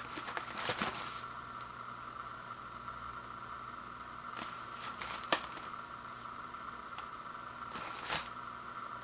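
Cardboard popcorn box being handled, with three short rustling scrapes and one sharp tap about five seconds in, over a steady background hum.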